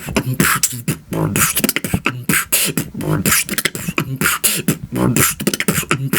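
Beatboxing: a fast, unbroken run of mouth-made drum sounds, with sharp clicks and hissy hits, mixed with short voiced tones.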